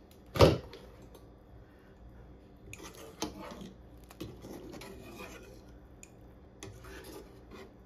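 Wire spider skimmer scraping and clinking against the inside of a Granitestone pot as it stirs and lifts chunks of beef in simmering stew. There is a single sharp knock about half a second in, then a run of small scrapes and clicks.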